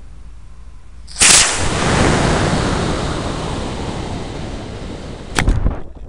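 Estes B6-4 black-powder model rocket motor igniting with a sudden loud blast about a second in, heard from a camera riding on the rocket. It is followed by a long rushing hiss of exhaust and airflow that slowly fades as the rocket climbs, and a single sharp crack about five seconds in.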